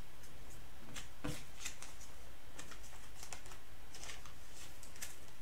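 Chrome trading cards being handled and flipped through by hand: an irregular scatter of light clicks and rustles.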